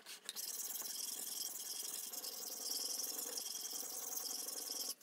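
Hatchet's steel edge being rubbed back and forth on a sharpening stone, a steady gritty hiss that stops suddenly near the end.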